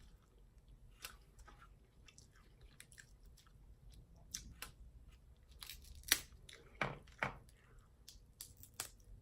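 A person chewing and eating seafood-boil food: scattered mouth clicks and smacks, with a few louder ones about six and seven seconds in.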